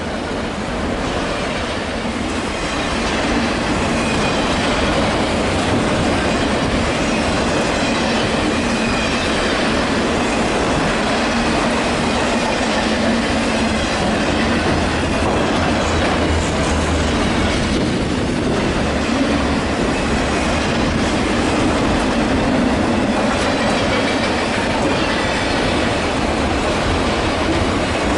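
Train rolling along the rails close by, a steady rumble and clatter of wheels on track that grows louder over the first few seconds and then holds steady.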